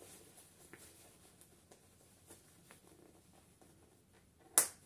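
Quiet handling of a softshell baby-carrier cover: faint rustles and small clicks as its fabric tabs are buttoned round the carrier's shoulder straps, then one short, loud rustle near the end.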